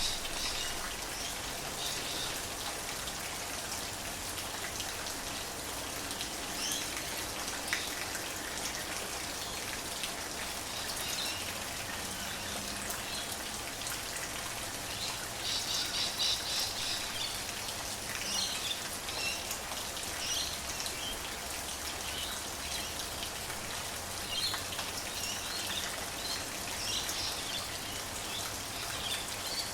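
Rain falling steadily, with birds chirping here and there above it; the chirping is busiest about halfway through.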